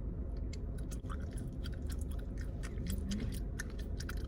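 Chewing gum with the mouth open, making many short, wet smacking clicks, over a low steady hum.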